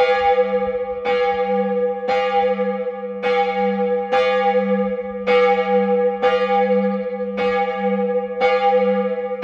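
A single Buderus cast-steel church bell tuned to G-sharp (gis′), swung and striking about once a second. Each stroke rings on into the next over a steady low hum. It is the call rung half an hour before a church service.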